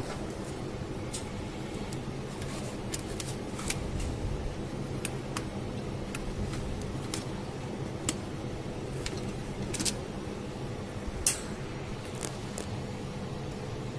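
Steady machine hum, with scattered small metallic clicks and clinks as a dissolved-oxygen probe's cable connector is handled and fitted onto the probe on a bioreactor vessel; the sharpest click comes about eleven seconds in.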